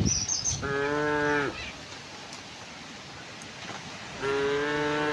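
A cow mooing twice: two short calls held on an even pitch, about three and a half seconds apart, the second a little longer and dipping at its end. A bird chirps briefly at the start.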